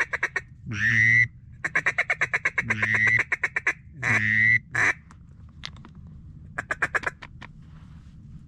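Mallard-style quacking: a series of loud, drawn-out quacks broken by runs of fast chattering notes, thinning out about halfway through to a few fainter quick quacks.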